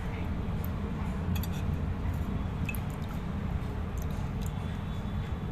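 Water being poured into a clay bird whistle, faint dripping and trickling with a few light clinks.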